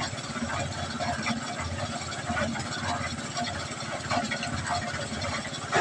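Portable drum cement mixer running, its drum turning with a steady mechanical rattle.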